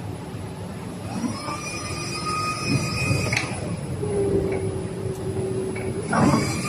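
Rotary cable peeling machine with its wire feeder and coiler running, over a steady mechanical noise. A motor whine rises about a second in, holds, and stops with a click a little past halfway. A lower hum follows, then the whine rises again near the end.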